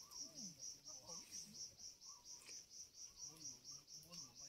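Faint, high-pitched insect chirping at a steady pulse of about seven chirps a second, with faint far-off voices underneath.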